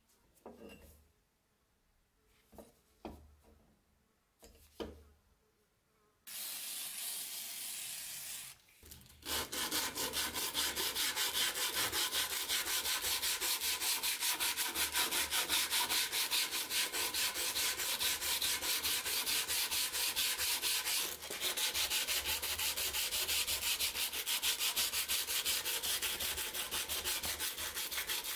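Hand-sanding a steel knife blade with abrasive paper on a block: quick, even back-and-forth rasping strokes that start about nine seconds in and keep going. A few faint taps and a short steady hiss come before the strokes.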